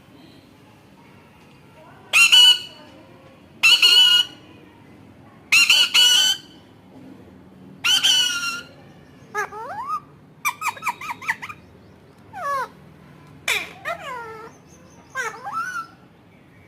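Pet parrot calling: four loud, harsh squawks about two seconds apart, then quicker whistled and chattering calls that slide up and down in pitch, with a rapid run of clicks near the middle.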